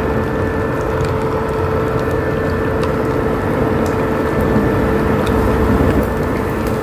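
Portable induction cooker running at full power, its fan giving a steady hum with a constant tone, while hot oil crackles faintly with small pops around a prawn cracker frying in a small pan.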